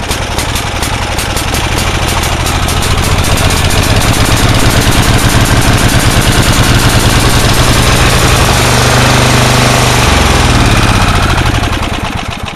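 Yard Works go-kart's small gasoline engine running loud and steady, freshly started cold after sitting for months, its firing pulses coming fast and evenly. The sound drops away near the end.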